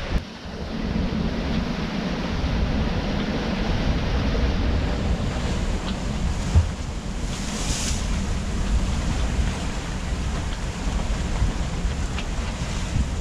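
Wind buffeting the microphone over the rush of sea water past a sailing yacht under way, a steady noisy wash with a brief louder hiss about eight seconds in.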